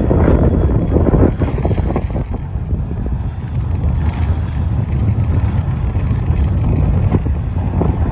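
Strong wind buffeting the microphone: a loud low rumble that surges and crackles with the gusts.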